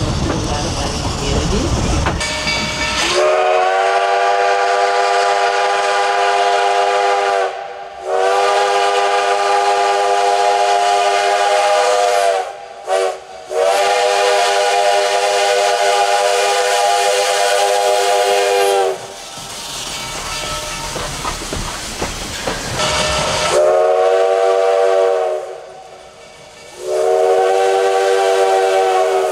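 Steam locomotive chime whistle sounding a series of blasts: two long ones, a very short toot, a long one (the long-long-short-long of a grade-crossing signal), then two more blasts near the end. Steam hisses between them.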